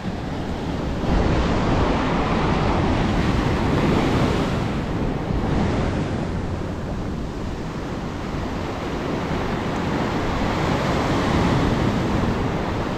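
Ocean surf breaking and washing up the beach in a steady rushing that swells and eases slowly, with wind buffeting the microphone.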